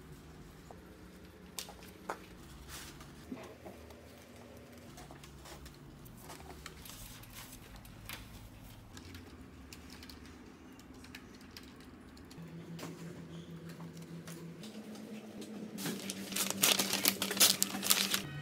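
Scattered light clicks and taps. About 16 seconds in comes a louder burst of crinkling and rustling as gift wrapping and a cardboard box are handled and opened.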